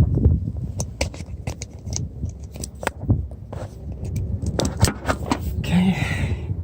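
Hands handling the heater's wiring and connectors: a run of irregular clicks, knocks and rattles, with a short rasping sound near the end.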